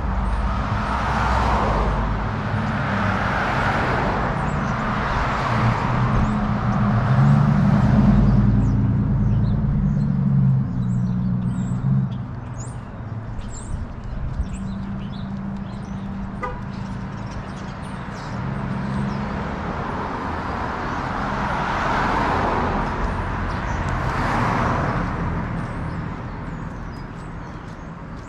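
Road traffic on a city street: cars passing one after another, with a vehicle's engine running low underneath, busiest in the first half and thinning out later.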